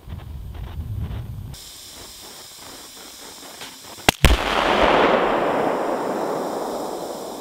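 Oxy-acetylene-filled weather balloon detonating: a sharp double crack about four seconds in, then a rushing rumble that slowly fades over the next few seconds.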